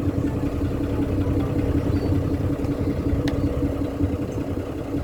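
Tour boat's engine running steadily, heard on board as a constant low rumble with a steady hum.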